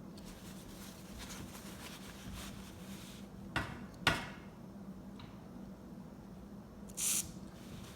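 A faint steady hum with two sharp clicks about half a second apart, then a short hiss of spray lubricant from an aerosol can about seven seconds in as a garage door hinge is lubed.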